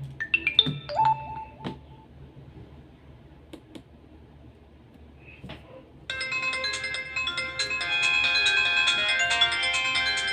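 Alcatel OT-602a mobile phone: a few short beeps and clicks, then about six seconds in a ringtone starts abruptly, a bright melody of several notes at once that keeps playing.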